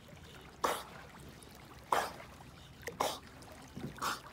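A bull terrier swimming with a ball in its mouth, puffing sharp breaths through its nose about once a second over faint water lapping.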